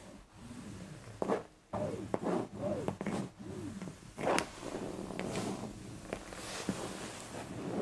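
Long acrylic nails scratching and rubbing across fabric sofa upholstery while a Maine Coon cat swats and lunges at them, with two sharp scuffs, one about a second in and one about four seconds in. A few short vocal sounds that rise and fall in pitch come between about two and three and a half seconds in.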